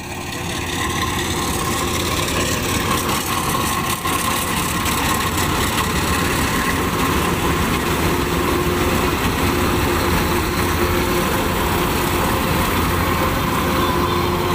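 Kubota rice combine harvester's diesel engine and threshing machinery running steadily while cutting rice, with a steady whine over the engine.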